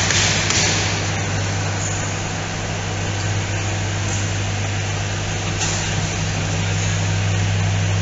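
Factory machinery running: a steady low electrical hum with a constant rushing noise over it, and a brief louder hiss in the first second.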